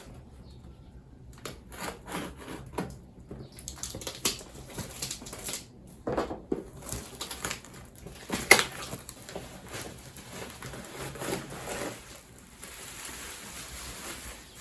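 Close-up handling of a parcel being unboxed: irregular rustling and crinkling of packaging with light clicks and knocks as items are handled and set down, the sharpest click about eight and a half seconds in.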